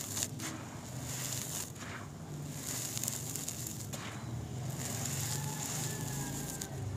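Dry, crumbly brown dirt being crushed between the hands and falling back onto a dirt pile: a gritty hiss of trickling soil broken by irregular crunches and crackles.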